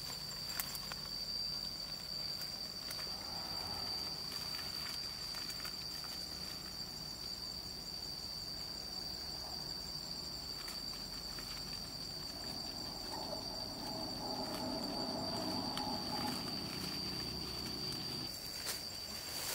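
Insects keep up a steady, high-pitched drone, with faint rustling and scattered small clicks. A low, muffled sound swells for a few seconds near the end.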